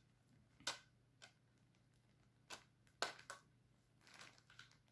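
A few short, sharp clicks and light crackles as compact discs are pressed into and lifted from the plastic trays of a CD digipack, with its clear plastic sleeve rustling under the hands.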